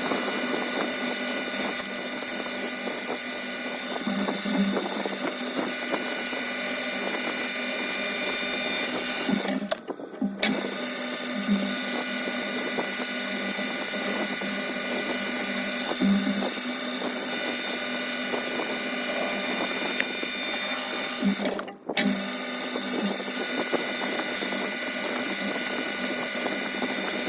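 Metal lathe running and cutting steel: a steady machine whine with the scraping noise of the cut, broken off sharply twice.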